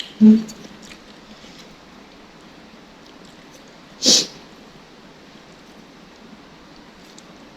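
Eating sounds from a person having spicy noodle soup. There is a brief hummed 'mm' just after the start, then a single sharp breathy noise about four seconds in, over a steady low hiss.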